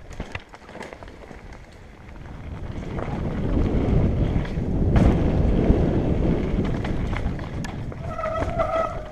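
Wind buffeting the camera microphone and the rattle of a mountain bike riding down a rocky trail, swelling to a peak about halfway through as speed builds and then easing off.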